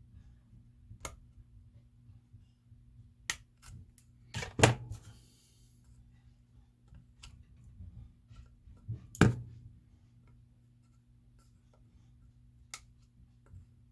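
Plastic model kit part being clipped away with hobby cutters: a scattering of sharp snips and clicks, the loudest about four and a half seconds in, over a faint steady low hum.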